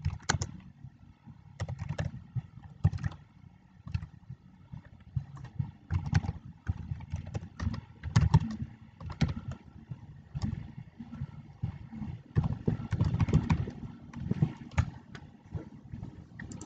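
Typing on a computer keyboard: irregular key clicks in quick runs with short pauses, as a line of code is entered.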